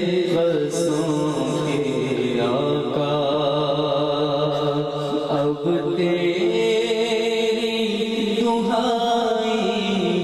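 A man's solo voice chanting an Urdu devotional lament (noha) into a handheld microphone, unaccompanied, in long held notes that waver and slide between pitches.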